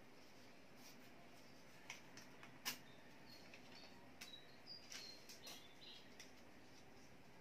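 Near silence with a few faint clicks and rustles from paper pieces and a cutter being handled, plus a few faint short high chirps in the middle.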